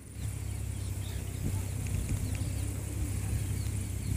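Outdoor ambience of many short, quick bird chirps over a low steady rumble, with a thin steady high tone in the background.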